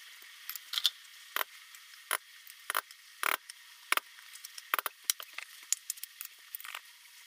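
Irregular light knocks and clicks, about a dozen, from cans of condensed soup being handled and emptied into a ceramic slow cooker.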